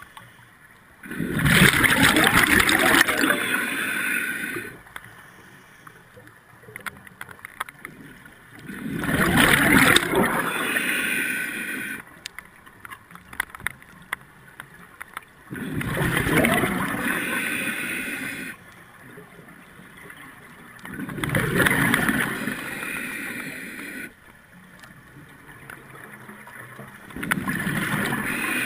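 Scuba diver breathing through a regulator underwater: five long rushes of exhaled bubbles, each about three seconds and roughly every six and a half seconds, with quieter gaps between.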